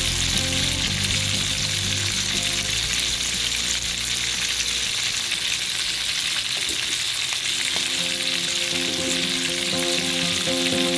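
Chicken pieces deep-frying in oil in a wok: a steady, dense sizzle of bubbling oil.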